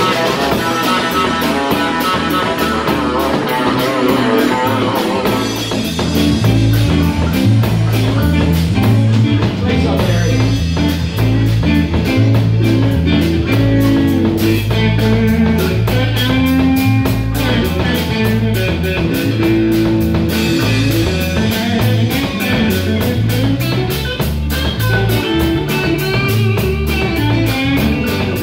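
Live blues-rock band playing an instrumental stretch: electric guitar over electric bass and a drum kit. The bass line steps from note to note and comes up louder about six seconds in.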